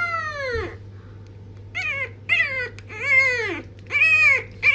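French bulldog puppy howling: one long call that rises and falls away, then, after a short pause, a run of four or five shorter howls in quick succession.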